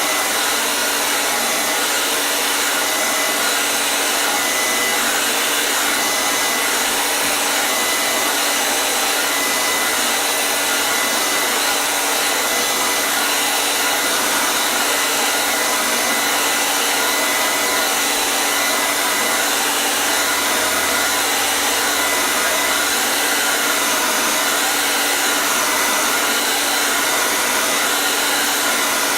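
Hair dryer running steadily, a continuous even rush of air and motor noise with a faint steady whine.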